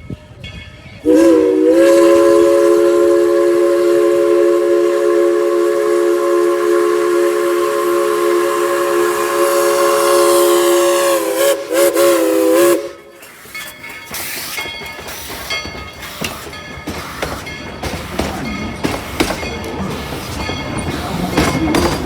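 Steam locomotive No. 190's whistle blown in one long blast of about twelve seconds, several notes sounding together, wavering briefly as it opens and again just before it cuts off. After it, the locomotive works on with rapid, irregular exhaust chuffs and rolling train noise.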